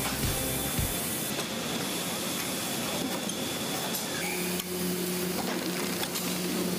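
Steady hissing of banknote packaging machinery, with a low hum joining about four seconds in.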